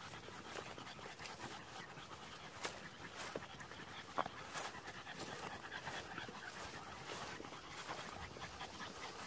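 Dog panting, fairly faint, with scattered short clicks and rustles of footsteps through brush.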